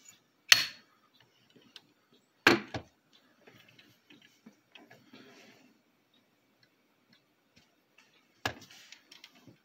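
Diecast model stock car being handled and moved on a wooden tabletop: three sharp clacks, about half a second, two and a half and eight and a half seconds in, with faint small ticks and rustles between.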